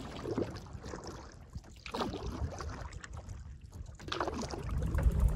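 Quiet lake ambience from a canoe: water lapping against the hull over a low wind rumble on the microphone. The rumble grows louder near the end.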